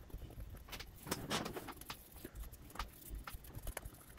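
Small plastic HO-scale model locomotive parts being handled and wiped clean by hand: scattered light clicks and taps, with a short rubbing sound about a second in.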